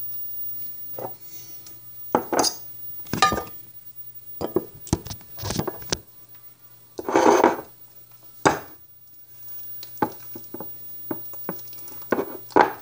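Kitchen utensils knocking and clattering as a potato masher and a bowl are handled, in separate irregular knocks with one longer clatter about seven seconds in. Over the last few seconds come quicker, lighter taps as the masher presses overripe bananas against the bowl.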